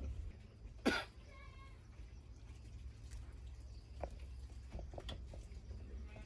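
Goat coughing once, short and sharp, about a second in; the goat is sick with a cough and cold. Faint bird chirping follows, with a few softer short sounds later.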